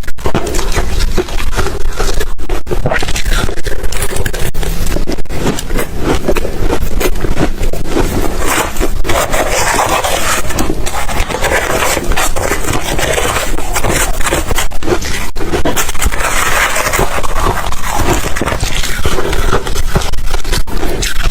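Ice cubes being bitten and chewed close to the microphone: loud, continuous crunching and crackling.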